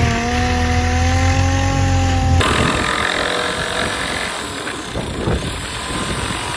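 Electric power sander running on plywood with a steady motor whine. About two and a half seconds in, the whine stops abruptly and a rougher, unpitched scraping noise takes over.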